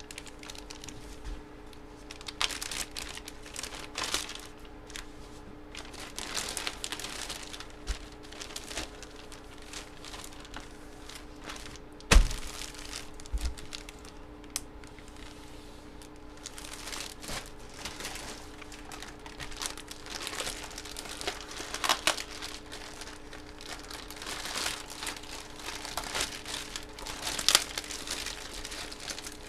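Packaging crinkling and tearing in irregular bursts as it is handled and pulled open, with one sharp knock about twelve seconds in.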